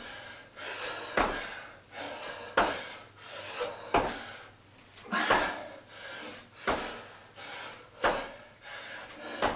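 Feet in trainers landing on the floor from side-to-side bounding jumps, a thud about every second and a half.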